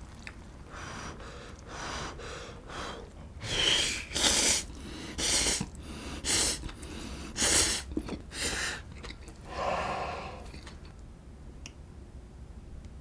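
A person making breathy mouth noises while eating hot noodles: a run of short, loud, airy bursts about once a second that stops about ten seconds in.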